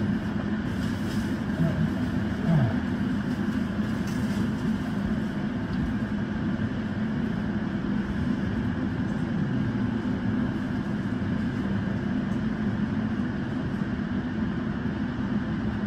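Steady hum and rumble inside a JR Central 313 series electric train, heard from just behind the cab, holding even throughout with no rising or falling motor whine.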